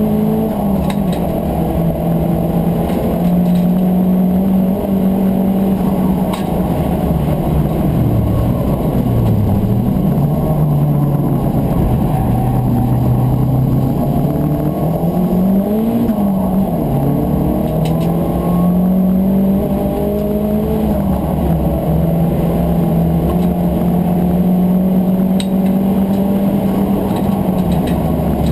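Turbocharged Volkswagen Corrado race car's engine heard from inside the cockpit, running hard at high revs on track. The revs drop sharply twice about a third of the way in, as if lifting and braking for a corner, then climb again through the gears, with road and wind rumble underneath.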